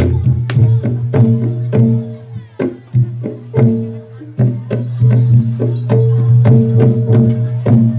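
Javanese gamelan music for a jathilan and barongan dance: sharp, irregular kendang drum strokes over ringing metallophone notes and a deep steady low tone. The drumming thins out and grows quieter briefly near the middle.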